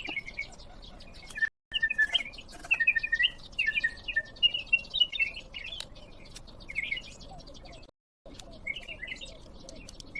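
Birds chirping in quick, repeated calls over a steady background hiss, busiest a couple of seconds in. The sound drops to dead silence twice for a moment, where the audio is cut.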